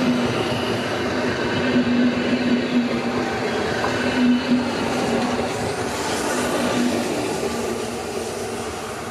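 Tren Central electric multiple-unit passenger train rolling along the track, its wheels rumbling with a steady hum and a few knocks around four seconds in. The sound fades over the last few seconds as the train moves away.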